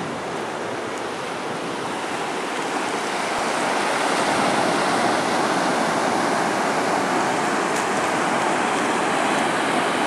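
Ocean surf breaking and washing up a sandy beach: a steady rushing hiss that grows a little louder about three seconds in.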